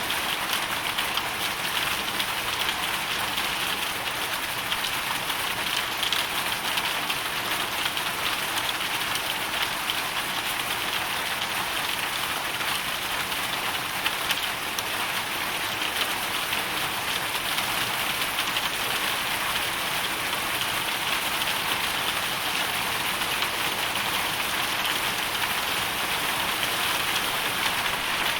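Hailstorm: a dense, steady patter of hail and rain that does not let up.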